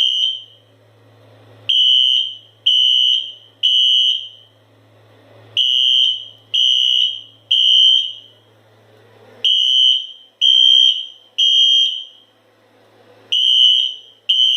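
Fire alarm horn sounding the temporal-three evacuation pattern: three very loud, high-pitched beeps about a second apart, a short pause, then three more, repeating, set off by a manual pull station.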